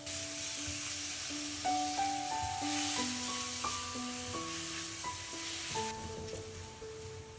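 Food sizzling as it fries in hot oil in a pan. The sizzle starts abruptly and stops about six seconds in, under background music that plays a melody of single notes.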